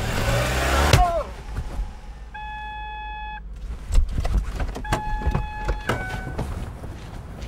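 Car engine revving as the car pulls off, the noise stopping sharply about a second in. Then scattered knocks and clicks, with two steady electronic beeps of about a second each.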